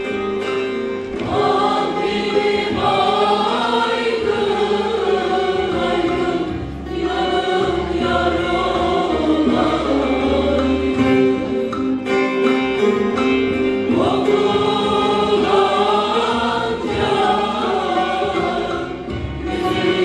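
Mixed men's and women's choir singing a Turkish zeybek folk song from Denizli in long phrases, with instrumental accompaniment underneath.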